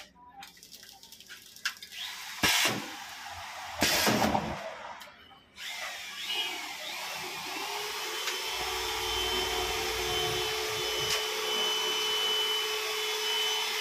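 Pouch packing machinery running. Two short, loud bursts of noise come in the first few seconds, then a steady motor whir with a constant hum runs through the rest.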